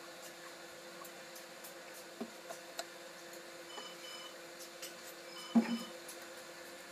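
Faint steady electrical hum, with a few light clicks and knocks as the plastic engine-oil jug is handled and moved. The loudest is a single thump about five and a half seconds in. Short high beeps sound twice, near four seconds and again near the thump.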